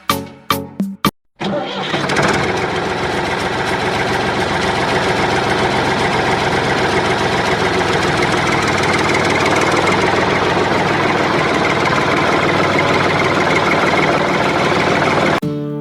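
A small motor starts and runs steadily and loudly for about fourteen seconds, then cuts off just before the end.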